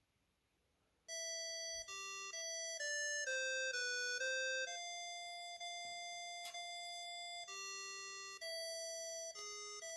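Avatar ET1 watch phone playing a ringtone melody: simple synthesized electronic notes stepping up and down, with one long held note in the middle, starting about a second in after a short silence.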